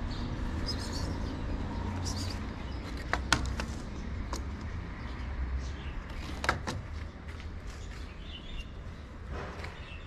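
Outdoor street ambience: a steady low rumble with small birds chirping, and a few sharp clicks a few seconds in and again past the middle.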